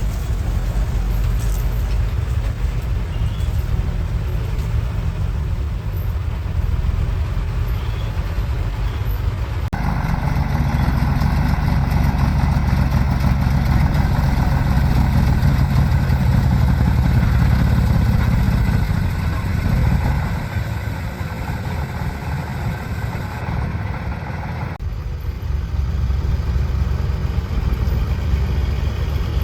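Heavy diesel machinery engines running, mostly low and steady, louder for a stretch in the middle. The sound changes abruptly about ten seconds in and again about twenty-five seconds in.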